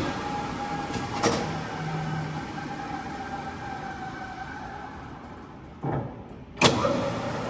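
Standard Modern engine lathe's geared headstock running at a low spindle speed, a steady hum with a light whine. Sharp clunks about a second in and near the end mark shifts between speeds.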